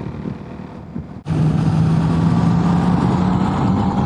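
Motorcycle riding on the road, with quieter engine and wind noise for about the first second. Then an abrupt jump to a louder, steady engine note with a faint whine rising slowly as the bike accelerates to overtake a car.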